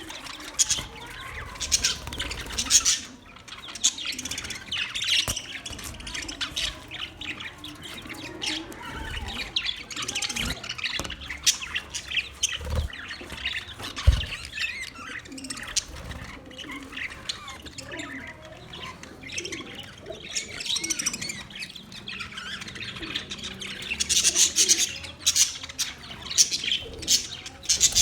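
Budgerigars chattering, a dense run of warbling chirps and squeaky calls that never stops. A dull low knock stands out about 14 seconds in.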